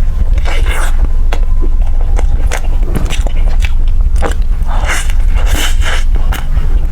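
A person biting and chewing food close to the microphone: rapid wet clicks and smacks, with a few longer crunchy bites, over a steady low hum.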